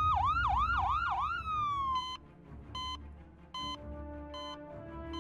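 Ambulance siren: a wailing tone swoops quickly up and down four times, then glides down and cuts off about two seconds in. Four short electronic beeps follow, evenly spaced a little under a second apart.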